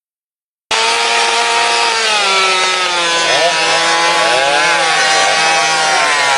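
Chainsaw running and cutting wood, cutting in abruptly under a second in; its engine pitch wavers and dips under load as it works through the wood.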